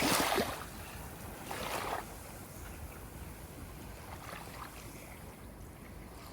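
Ocean waves breaking and washing in: one splash right at the start and another about a second and a half in, then a lower steady wash with small lapping sounds.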